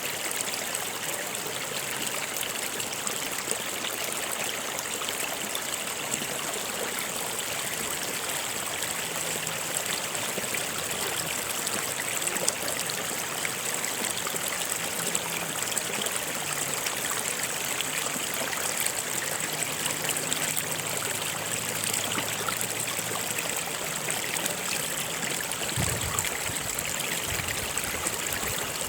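Water of a stream flowing, a steady rushing and trickling with no break.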